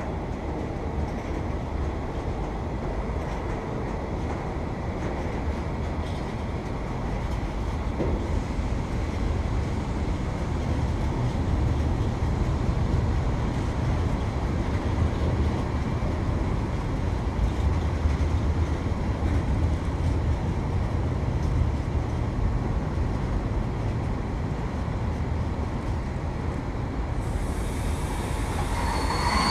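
Freight train of tank wagons rolling past close by: a steady noise of wheels on the rails that swells slightly partway through.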